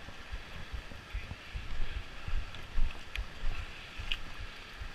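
Creek water rushing over rocks, under irregular low wind buffeting on the camera microphone, with a few sharp taps.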